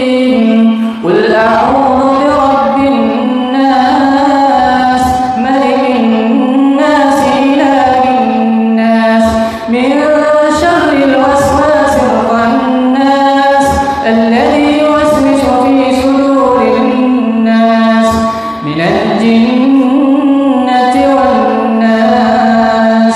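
Unaccompanied melodic vocal chanting: a voice drawing out long, ornamented notes that slide up and down, with rising swoops about a second in, around ten seconds in and near the end.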